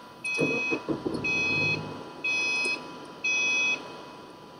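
Electronic warning chime inside a car, beeping steadily once a second with four short high beeps. A few knocks and a low rumble sound under the first two beeps.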